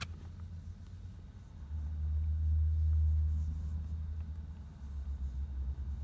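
Young kitten purring while being stroked: a low rumble that grows louder about two seconds in and goes on in even pulses near the end.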